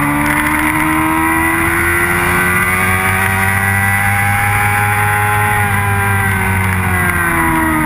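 Motorcycle engine pulling hard down a straight, its pitch climbing slowly as the bike gains speed, then levelling off and dropping slightly near the end as the throttle eases. Wind rush over the onboard camera runs under it.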